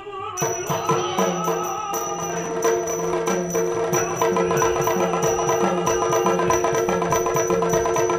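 Yakshagana music accompanying a puppet dance: fast, driving drum strokes over a steady sustained drone. It starts sharply about half a second in.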